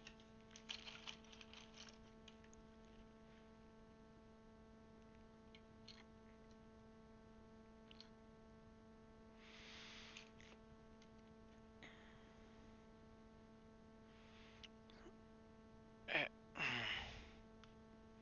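Faint clicks and taps of plastic keycaps being handled and pressed onto a mechanical keyboard's switches, over a steady electrical hum. About two seconds before the end there are two louder, short handling noises.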